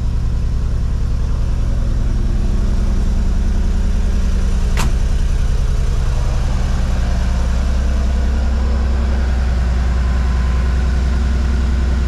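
Mercedes G63's twin-turbo 5.5-litre V8 idling steadily, with a single sharp click about five seconds in.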